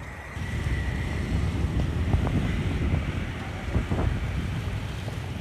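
Wind buffeting the microphone outdoors, an uneven gusting low rumble.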